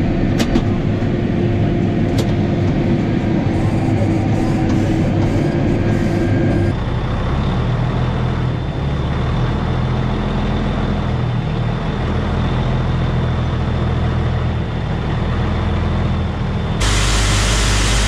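Tractor diesel engine running steadily, heard from inside the cab. After a cut about a third of the way in, a different engine runs with a thin high whine over it, and near the end a louder, rushing machine noise takes over.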